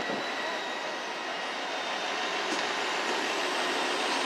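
Trains moving slowly through a covered station: a steady rumble and hiss with faint, steady high whines above it.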